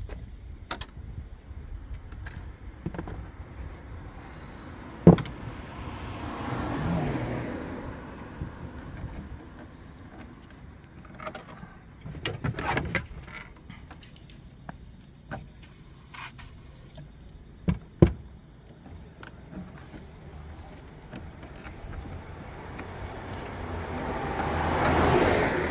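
Scattered clicks and two sharp knocks from hands and tools working on a car's rear light wiring, with a passing vehicle rising and fading twice, the second time louder, near the end.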